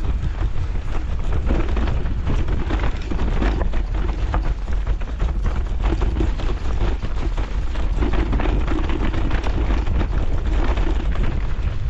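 Wind buffeting a helmet or action-camera microphone during a mountain-bike descent, with the bike's frame and parts rattling and knocking over rough trail throughout.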